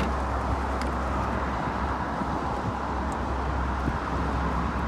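Steady background noise of road traffic and wind: a low rumble with an even hiss over it, and a few faint clicks.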